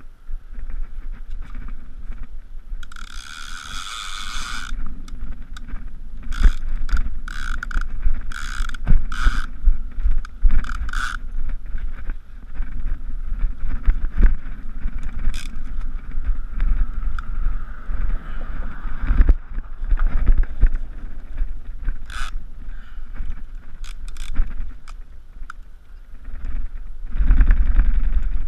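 Heavy conventional fishing reel ratcheting and clicking in irregular runs while a hooked fish pulls on the line, over a steady low rumble of wind and handling noise on the microphone.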